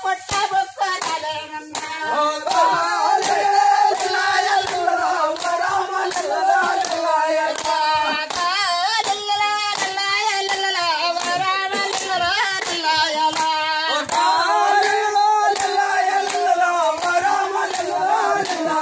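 A group of people singing a folk song together while clapping their hands in a steady rhythm, about two claps a second.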